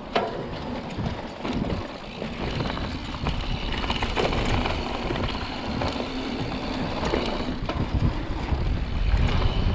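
Mountain bike riding fast down a dirt trail, heard from a handlebar-mounted camera: tyres crunching over dirt, the bike rattling with many small clicks, and wind rumbling on the microphone, heavier near the end.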